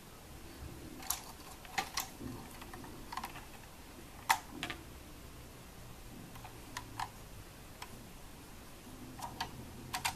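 Irregular sharp clicks and clacks of Lego plastic pieces being handled, as a minifigure is fitted into a helicopter cockpit; the loudest click comes about four seconds in.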